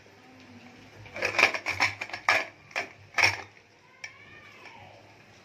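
Steel pressure cooker lid clanking against the pot as it is handled, a quick run of sharp metallic clacks from about a second in, the last one a little over three seconds in.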